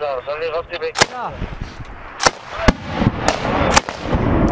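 Small-arms gunfire: about five single shots at uneven spacing, over a man's voice calling out during the first second.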